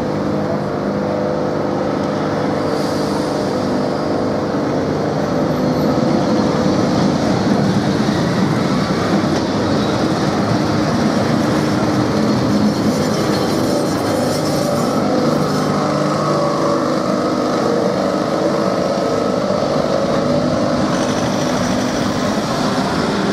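Lisbon heritage tram, a Remodelado streetcar, rolling past on street rails with its steel wheels running over the track, mixed with street traffic. A steady hum sounds for the first few seconds.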